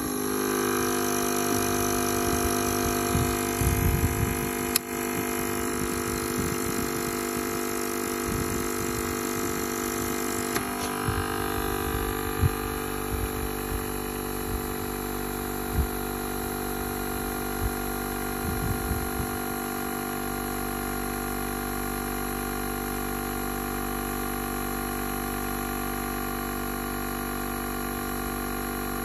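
Freshly replaced compressor motor of an Arid Bilge dry-bilge system starting abruptly and running with a steady multi-tone hum. Its pitch settles slightly about a third of the way in. Irregular low knocks come and go through the first two-thirds, then it runs evenly.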